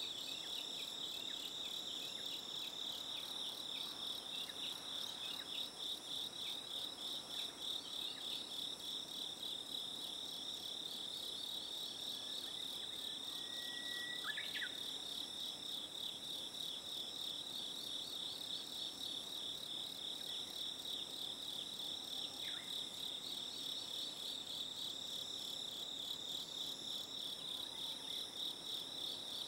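Insects trilling: a steady, rapidly pulsing high chirr that carries on unbroken, with one brief different call about halfway through.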